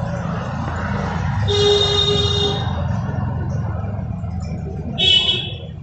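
Steady low rumble of road traffic, with a vehicle horn sounding one steady note for about a second, starting about a second and a half in. Near the end comes a shorter, louder high-pitched sound.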